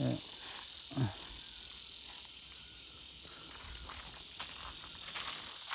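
Insects chirping in a steady, high, even drone, with a couple of short voice sounds in the first second and faint rustling clicks.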